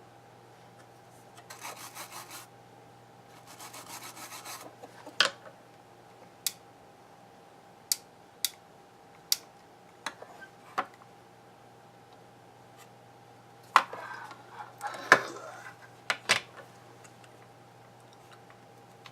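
Handling noises on an electronics repair bench: two short spells of scraping or rubbing, then a string of sharp clicks and taps, with another cluster of scraping and clicks near the end. A faint steady hum sits underneath.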